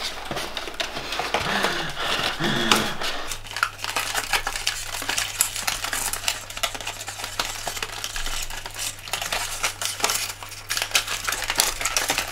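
Cardboard and plastic packaging rustling and clicking in quick, irregular handling noises as a fashion doll is worked free of its box insert.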